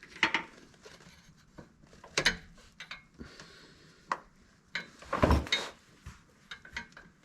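Scattered metallic clinks and knocks of an O2 sensor socket being slid down over a screwed-in oxygen sensor and handled, with a louder knock about five seconds in.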